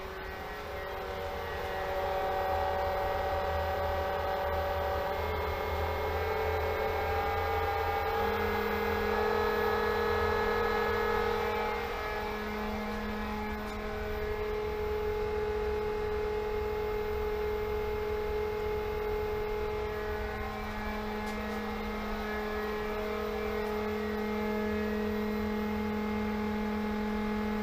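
A 1.5 horsepower Pentair SuperFlo variable-speed pool pump running with a steady motor whine and hum. It gets louder over the first couple of seconds, and about eight seconds in a deeper hum joins as the pump is stepped up to a higher speed and flow.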